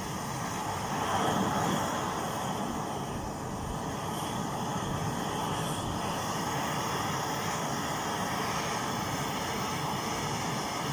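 Two pressurised petrol burners of a Swiss military field stove running, a steady hiss of burning fuel that swells a little about a second in.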